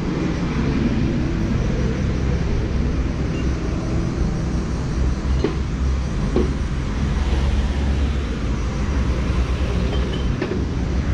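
Street traffic: a steady low vehicle rumble, with a few brief knocks.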